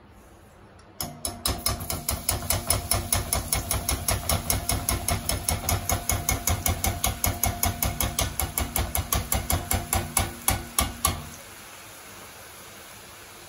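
Rapid, even metallic tapping, about five taps a second, as a perforated steel slotted spoon of gram-flour batter is knocked against a steel kadai to shake drops of batter into hot oil for small pakodi, over the steady sizzle of the frying oil. The tapping starts about a second in and stops about eleven seconds in, leaving only the sizzle.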